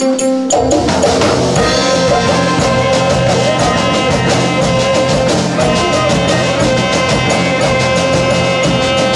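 A small band playing live: a guitar picking alone at first, then about half a second in the drum kit, bass and a saxophone come in together and play on with a steady beat.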